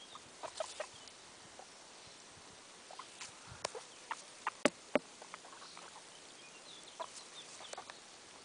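Guinea pigs nibbling grass close to the microphone: a scatter of short, crisp clicks and crunches, loudest in a run about three to five seconds in.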